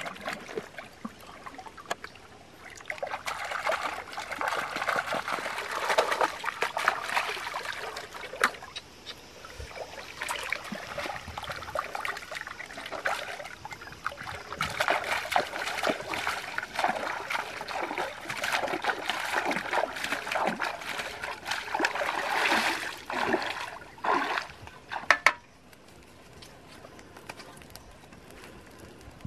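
Water splashing and trickling as hands dig and grope in the muddy bed of a shallow mangrove creek for mangrove clams, with many small sharp clicks among the splashes. The splashing stops suddenly near the end.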